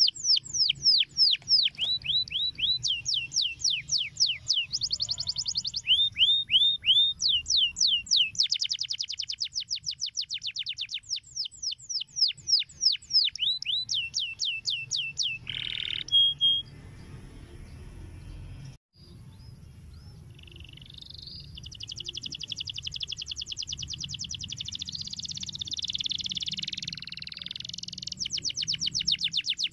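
Domestic canary singing: fast trills of downward-sweeping notes, several a second, then a quieter stretch that cuts out for a moment about two-thirds through, followed by a dense, continuous warble and fast trills again near the end.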